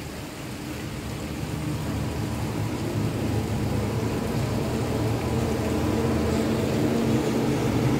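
A vehicle engine running, low and steady, growing gradually louder.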